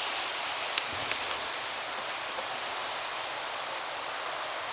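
Steady rain hiss. A couple of faint clicks come about a second in.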